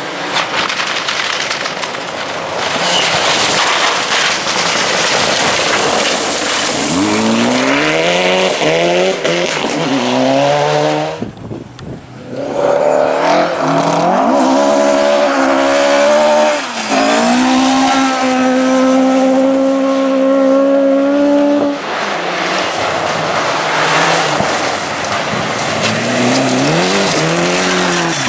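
Classic rally cars at full throttle, engines revving hard and climbing in pitch through the gears, with a loud rushing hiss of tyres under them. The sound drops away briefly about twelve seconds in, then an engine holds a steady high note for several seconds, and near the end another car revs up through rising gear changes.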